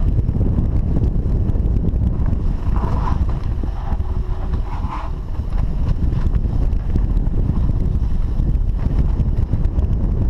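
Wind rushing over the camera microphone, with the rumble and rattle of a downhill mountain bike running fast over a dry dirt trail.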